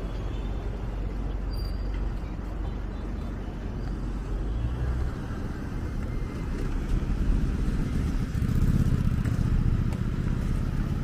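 City street traffic: motor vehicles running past, a steady low rumble that swells as a vehicle comes close, loudest about eight to ten seconds in.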